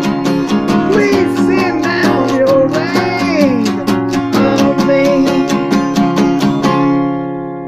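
Acoustic guitar strummed in a steady rhythm, with a man's wordless singing gliding over it. The strumming stops about seven seconds in and the last chord rings out.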